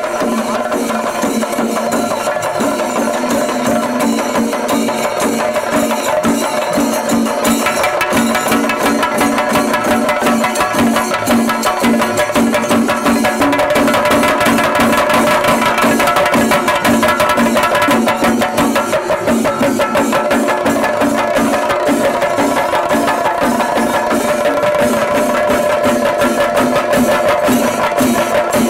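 Traditional festival percussion music: rapid, dense drum strokes over steady held tones, growing fuller about seven seconds in.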